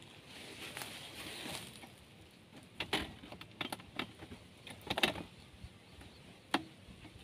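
Handling noises from something worked by hand: faint rustling, then a scattering of short sharp clicks and light knocks, the loudest about three and five seconds in.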